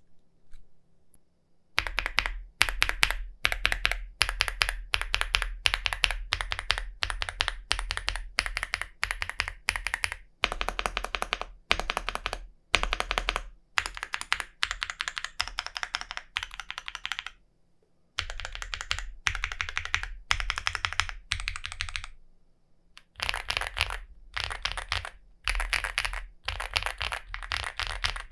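Typing on a Chilkey ND75 mechanical keyboard whose case is filled with silica gel particles: fast, continuous runs of key presses, with a couple of short breaks. The typing starts about two seconds in.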